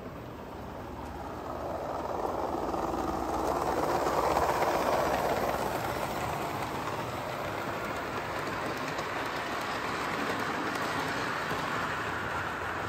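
On30 model train, a small steam locomotive and its freight cars, rolling along the track with a steady wheel-and-rail rolling noise. The noise grows louder as the train comes close, is loudest about four to five seconds in, then carries on steady as the cars go by.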